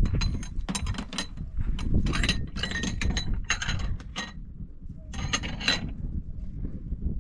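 Repeated clinks and knocks of kitchenware, several short ringing strokes in quick runs, over a steady low rumble.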